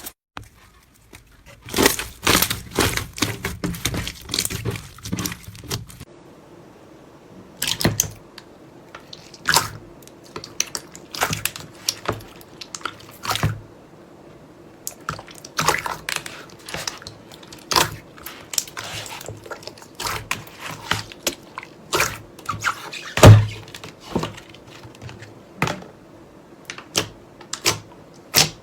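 Slime being squeezed and pressed by hand, giving irregular sharp clicks, crackles and squishes. About six seconds in the background changes and a faint steady hum starts underneath.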